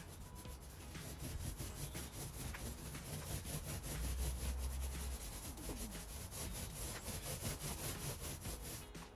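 Paint roller rolling white paint onto a stable wall: a continuous rubbing, rasping sound made of many short strokes, with a brief low rumble about four seconds in.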